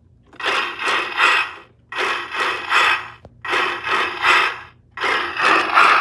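Road Rippers toy truck playing electronic sound effects through its small built-in speaker: four rough, distorted bursts of about a second and a half each, with short breaks between them.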